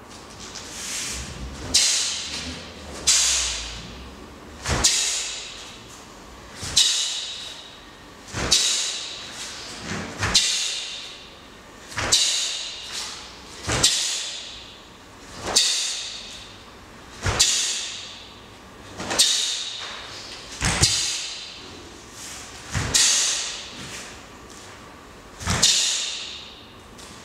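Taekwon-Do uniform (dobok) snapping sharply with each technique of a pattern, about every one and a half to two seconds. Each snap comes with a rustling swish of the cotton suit in a large hall.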